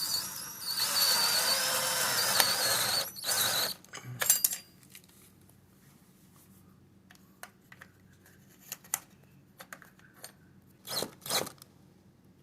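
Power drill driving a deck screw through a blind mounting bracket into the window frame, running for about three seconds with a wavering whine, then a short second burst as the screw is snugged tight. Later come a few light clicks and knocks of handling.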